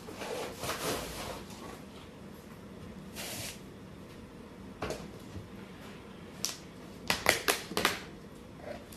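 A plastic cup scooping dry plaster powder out of a plastic bucket: soft scraping and rustling, a few single clicks, then a quick run of sharp plastic clicks and knocks near the end, the loudest part, as the cup and bucket lid are handled.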